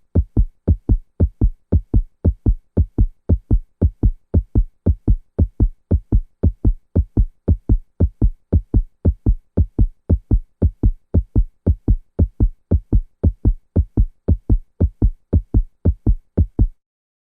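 A deep thump repeated at an even pace, about three times a second, then cutting off abruptly near the end.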